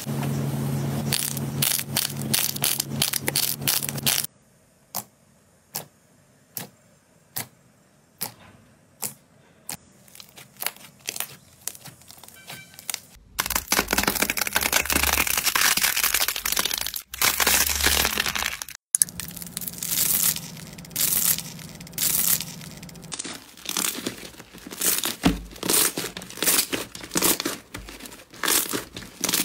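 Slime and clay squeezed and pressed by hand close to the microphone, giving crackles, pops and clicks. The crackling is dense for the first few seconds, thins to single quiet clicks under a second apart for several seconds, then turns dense again with separate crackles and pops.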